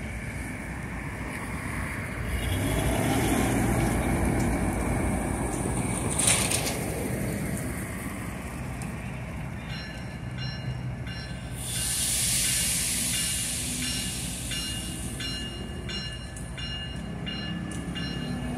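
GE ES44AC diesel-electric locomotive running with a steady low rumble. A sharp metallic clank comes about six seconds in, a hiss of air around twelve seconds, and from about ten seconds on a high metallic ringing comes and goes.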